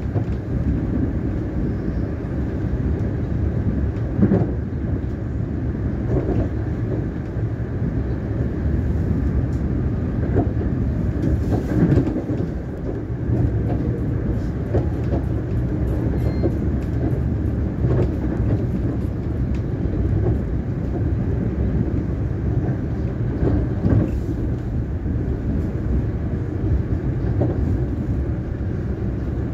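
Siemens Nexas electric suburban train running at speed, heard from on board: a steady low rumble of wheels on rail, with a few separate knocks and clunks along the way.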